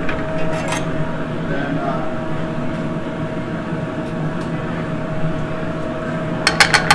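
Steady kitchen background noise with a constant faint tone, over a skillet of wine reduction on a gas burner. Near the end comes a quick run of clicks as metal tongs drop cubes of butter into the stainless skillet.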